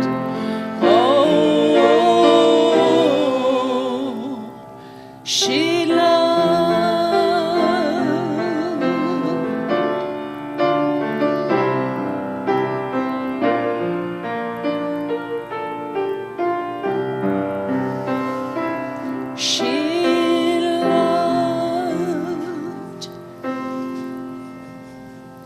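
A solo singer holding long notes with vibrato over grand piano accompaniment in a slow song. The music dies away near the end.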